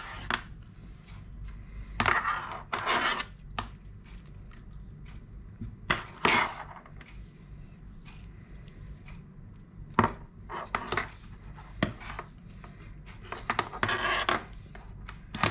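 Handling noise: a USB charging cable being uncoiled and a small plastic battery charging box being moved on a desk, heard as scattered clicks, knocks and rustles at irregular intervals.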